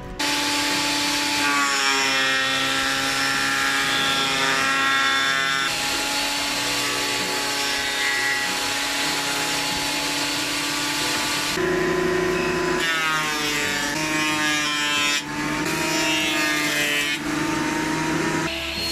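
Benchtop jointer and thickness planer running, their cutterheads planing a birch board with a dense, steady machine noise and a high motor whine. Twice the whine rises as a machine spins up.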